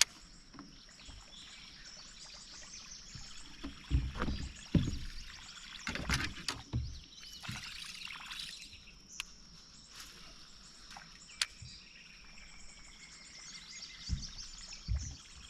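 Lakeside ambience with a steady high insect buzz and bird calls. A cluster of knocks and water splashing comes about a third of the way in, and a sharp click follows later.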